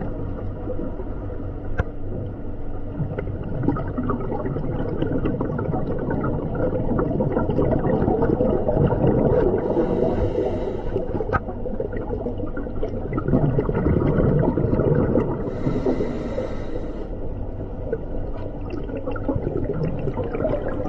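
Muffled underwater rumbling and gurgling picked up by a submerged camera, with two short bursts of hiss about six seconds apart.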